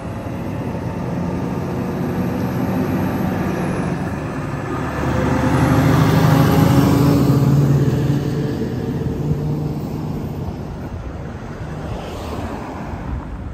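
Heavy-haul diesel truck pulling a long multi-axle low-loader driving past: engine hum and tyre noise build, are loudest about halfway through as it passes, then fade away.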